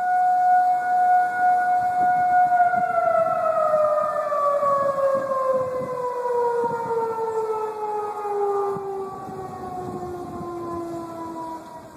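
Outdoor warning siren holding a steady tone for a couple of seconds, then winding down, its pitch falling slowly and evenly as it fades toward the end.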